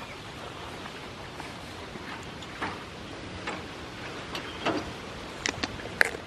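Steady outdoor hiss with irregular sharp clicks and taps that come more often and louder in the second half, the loudest about six seconds in.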